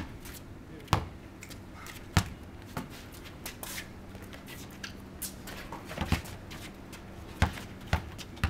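A basketball bouncing on a concrete court: sharp thumps, three about a second apart at the start, then a few more near the end, with sneakers shuffling and scuffing on the concrete between them.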